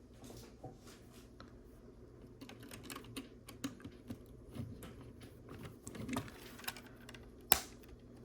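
Small plastic Lego pieces clicking and rattling as they are handled and pressed together, with one sharp snap near the end as a piece seats into place.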